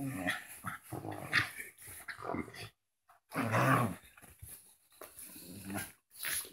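Small dogs growling in play while wrestling, in a string of short irregular bursts, the loudest about three and a half seconds in.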